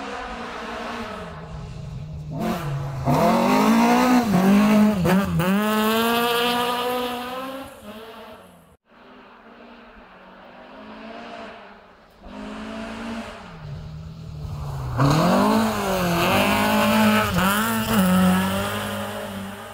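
Rally cars at full speed on a gravel stage, passing twice: each time the engine revs hard, its pitch climbing and falling back through gear changes, loudest as the car goes by. The first pass cuts off sharply.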